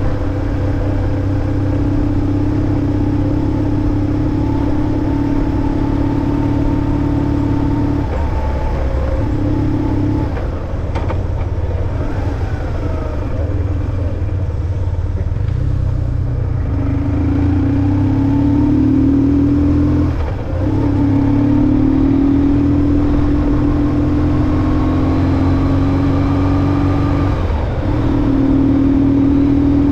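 BMW R1150GS boxer-twin motorcycle engine running steadily under way, its note rising slowly over several stretches and dipping briefly four times, about 8, 10, 20 and 27 seconds in.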